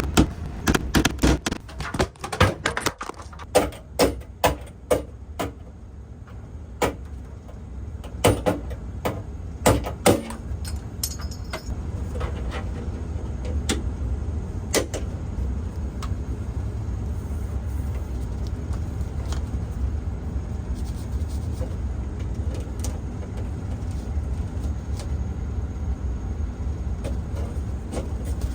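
Irregular clicks and knocks from hand work on electrical cable at a breaker panel. They come quickly for the first ten seconds, thin out until about fifteen seconds in, and stop, leaving a steady low hum.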